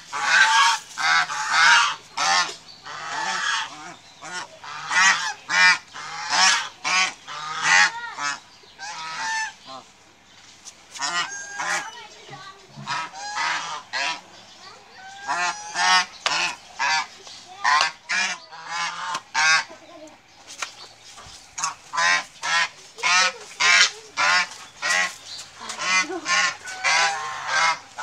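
Domestic geese honking over and over in quick runs of short, loud calls, with a couple of brief lulls.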